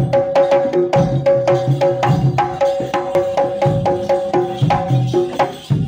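Jaranan gamelan music: tuned gong-chimes struck in a fast, even pattern, about five strokes a second, over drums. The playing dips briefly near the end.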